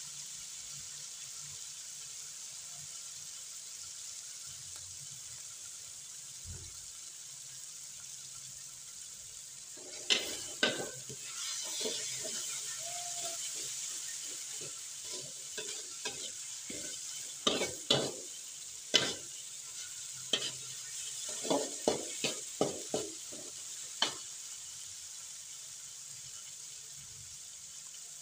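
Spice paste sizzling in hot oil in a stainless steel wok while it is sautéed until fragrant. A metal spoon stirs it, scraping and clinking against the wok, most often from about ten seconds in until about twenty-four seconds.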